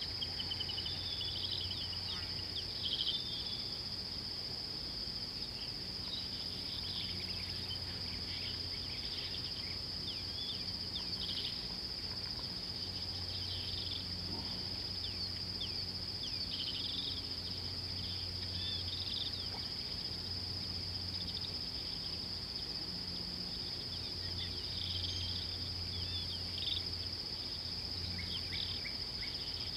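Steady, high-pitched insect chorus, crickets or cicadas, with scattered short bird chirps over it and a low hum underneath.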